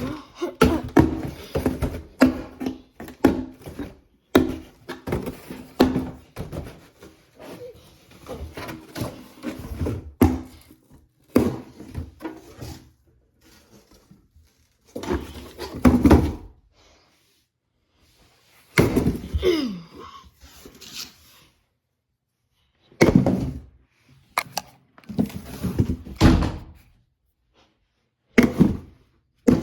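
Repeated thunks and knocks of 3D-printed plastic knives striking a hard surface, in rapid succession for about the first ten seconds, then in scattered bunches.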